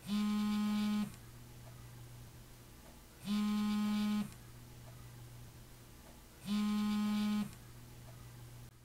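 Smartphone on a bedside table going off with a buzz, three times, each about a second long and about three seconds apart, waking its owner.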